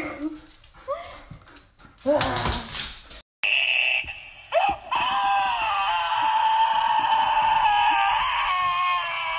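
Short rising dog whines in the first few seconds. Then a loud, long, high-pitched wail that holds steady with small shifts in pitch.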